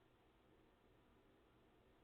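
Near silence: a faint, steady background hum.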